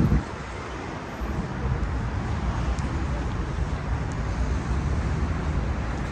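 Road traffic noise: a steady rumble of passing cars, quieter for about a second near the start.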